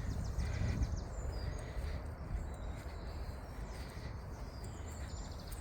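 Small songbirds singing in short, rapid trills, twice: once at the start and again near the end. Underneath them runs a steady low rumble.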